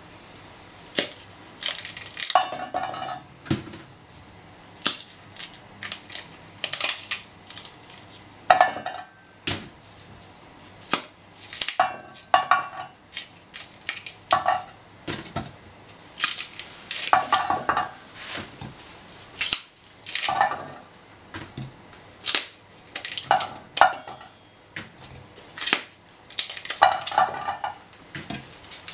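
Fresh broad bean pods being split open by hand with crisp snaps and crackles, and the shelled beans dropping into a stainless steel bowl with light clinks, in irregular clusters every second or two.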